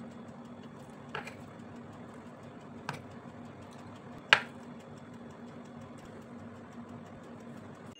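Stainless steel kitchen tongs clicking against a plate and cutting board three times, the loudest about four seconds in, as pieces of sausage are picked up and set down. A steady low hum runs underneath.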